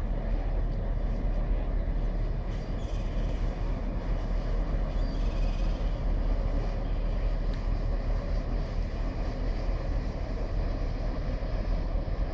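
Steady low rumble of a large cruise ferry passing close by, mixed with wind buffeting the phone's microphone.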